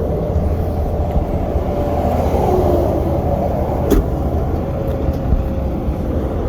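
Vehicle engine running with a steady low rumble, and one sharp click about four seconds in.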